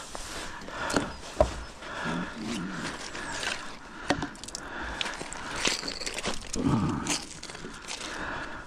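Rusty metal finds from a magnet, a bit of scaffold pole and a scaffold spanner, handled on a stone bridge parapet: a few sharp knocks and scrapes of metal against stone.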